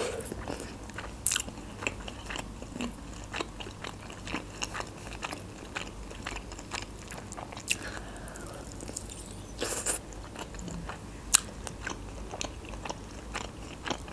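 Close-miked eating: biting into and chewing a chicken drumstick, heard as many short, sharp wet clicks and smacks, a few of them much louder.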